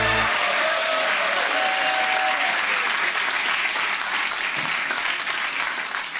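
Studio audience applauding steadily, with a few faint notes of music trailing off under it in the first couple of seconds.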